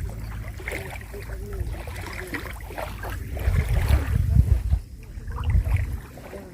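Wind buffeting the microphone, a low rumble that rises in gusts about three and a half seconds in and again near five and a half seconds, over faint distant voices and water.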